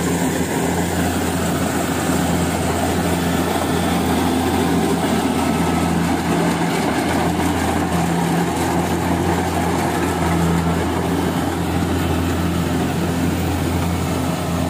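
Rice combine harvester's engine and threshing machinery running steadily at close range: a constant low hum with even mechanical noise.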